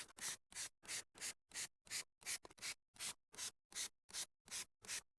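Hand trigger sprayer squirting wheel cleaner onto a car wheel in quick, even pumps, about three a second.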